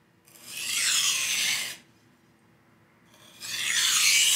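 A knife edge drawn along a low-grit whetstone in two long tip-to-heel strokes, each a gritty scrape about a second and a half long, with a short pause between them as the knife is flipped over. This is the deburring stage of sharpening, where every stroke should sound about the same.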